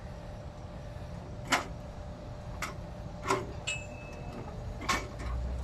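A handful of sharp metallic knocks and clinks, about one a second, with a brief high ring in the middle, from a wheeled steel gantry with a chain hoist and hanging chains as it is rolled across grass.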